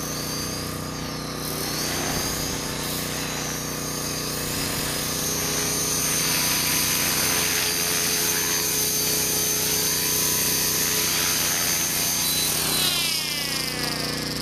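Electric T-Rex 450 XL RC helicopter running, a steady whine from its motor and rotors that falls in pitch near the end.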